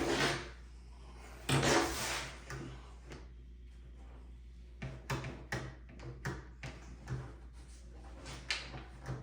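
Heavy-duty clamps being handled and set on a glued drawer box: a short scraping slide about one and a half seconds in, then a run of light clicks and knocks.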